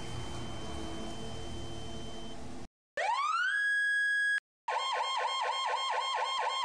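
A steady rushing noise for the first two and a half seconds, then an electronic siren. It gives a wail that rises and holds, stops abruptly, and then switches to a fast up-and-down yelp of about six cycles a second.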